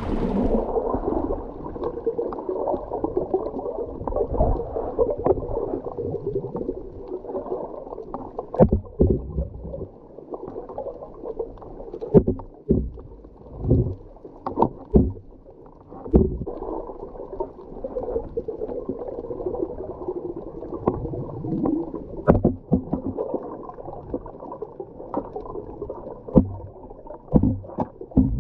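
Muffled underwater sound: a steady low rush of water with irregular sharp knocks and thumps.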